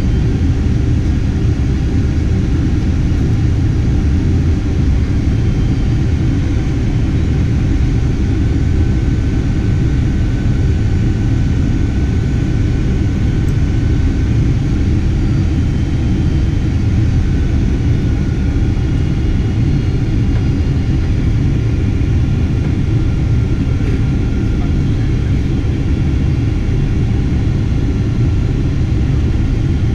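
Steady cabin noise inside a Boeing 767-300ER during its descent: a low rumble of jet engines and rushing air, with a faint steady whine above it.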